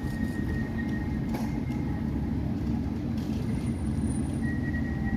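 West Midlands Metro CAF Urbos 3 tram standing under the overhead wire with its pantograph raised, its equipment running with a steady low hum and a thin high whine. There is a faint click about a second and a half in.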